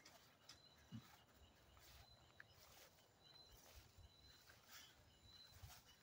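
Near silence: faint outdoor background with scattered light clicks and ticks.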